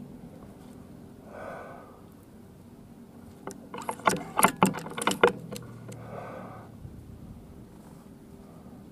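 Air rifle being handled between shots, likely reloaded: a quick cluster of metallic clicks and rattles lasting about a second and a half, near the middle.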